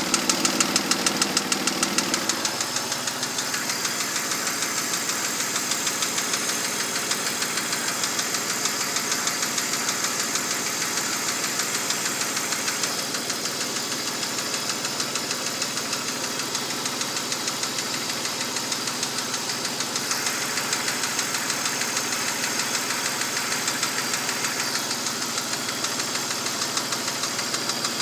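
BMW M52TU inline-six engine (E39) running with a steady, rhythmic knock from the front of the cylinder head near the VANOS units. The owner is unsure whether it comes from the VANOS or from worn engine bearing shells.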